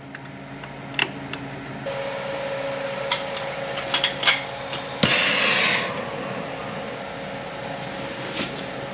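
Scattered metal clicks and knocks of hand tools working a loosened brake caliper bolt, over a steady low hum. A short rushing noise follows the sharpest knock about five seconds in.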